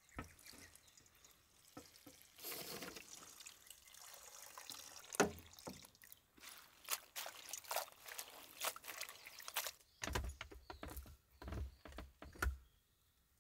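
Liquid pouring and dripping amid a run of small sharp clicks and knocks, with a few duller thumps toward the end.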